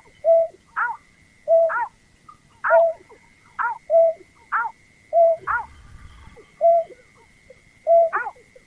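Lure recording of the rice-field bird known in Indonesia as berkik/pekung/burcet, calling over and over about once a second. Each call is a short falling note followed by a lower, even hoot. A thin steady high tone runs underneath.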